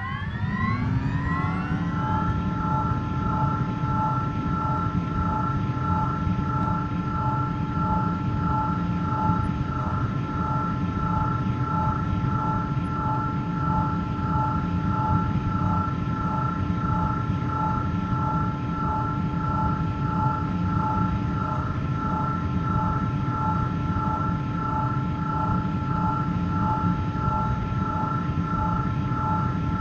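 Sci-fi hover engine sound effect. A rising whine spins up over the first two seconds, then settles into a steady low rumble under a constant hum and two high tones that pulse in an even rhythm.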